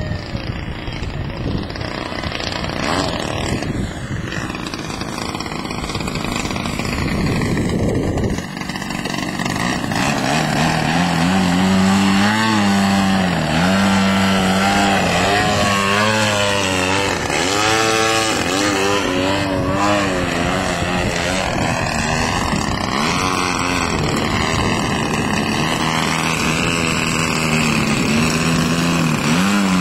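DLE 55 single-cylinder two-stroke gas engine of a large radio-control aerobatic biplane in flight, turning a Vess 23A propeller through its stock muffler. For the first eight seconds it is more distant and mixed with wind, then it gets closer and louder. Its pitch keeps rising and falling with throttle and passes, with a big sweep up and down about two-thirds of the way through.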